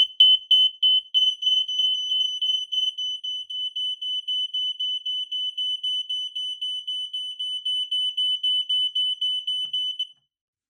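Smoke alarm sounding on its test button: a piercing high-pitched beep pulsing rapidly, about four pulses a second, that stops abruptly about ten seconds in.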